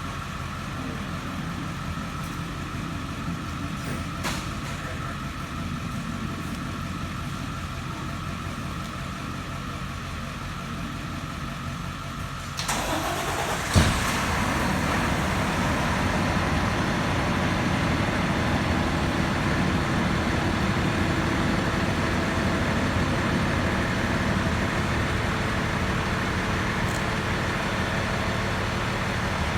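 Vehicle engine running steadily at idle. About halfway through, the noise suddenly gets louder, a single sharp thump follows a second later, and the engine keeps running at the higher level.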